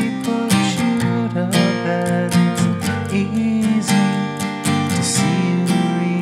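Background music: strummed acoustic guitar over a steady beat.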